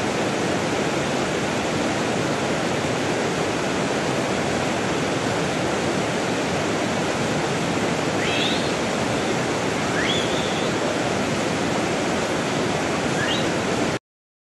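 Steady rushing of water, like a stream or waterfall, with three short rising high chirps about two seconds apart in the second half. The sound cuts off suddenly near the end.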